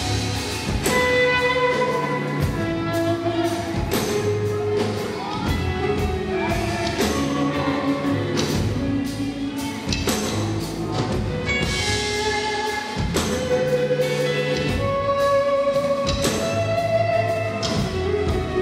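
Live gospel band playing: electric guitar leading with held notes over a steady drum kit beat.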